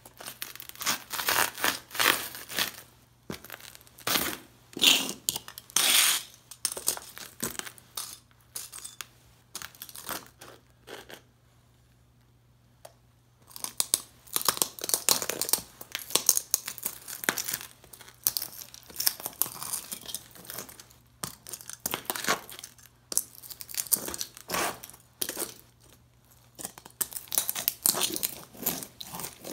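Heavy leather boots stomping on and grinding the broken remains of an old tube radio on a concrete floor: irregular cracking, crunching and scraping of plastic and metal debris. There is a short pause about halfway through.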